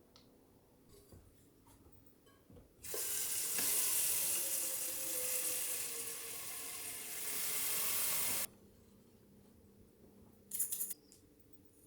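Water running from a tap for about five and a half seconds, starting about three seconds in and shut off abruptly. A short splashing burst follows about two seconds later.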